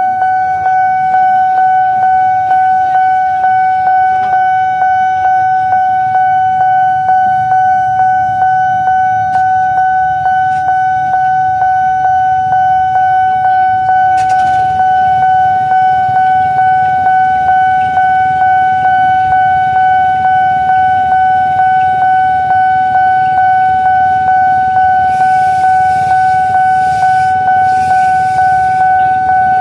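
Railway level-crossing warning alarm sounding: a loud, steady electronic tone pulsing about twice a second, warning that a train is approaching, over a low rumble of road traffic.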